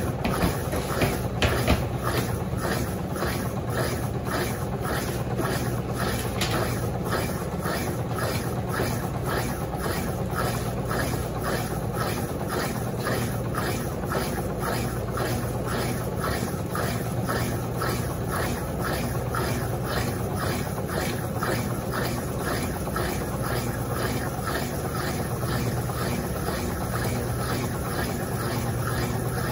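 Electrolux Turbo Compacta LTC07 top-loading washing machine spinning a load of rugs on its turbo spin at 520 RPM: a steady motor hum with a regular pulsing beat, two to three pulses a second.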